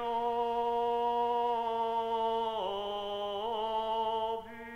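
A lone male priest singing Patriarchine chant in Latin, holding one long vowel on a steady note with two brief dips in pitch, and growing softer near the end.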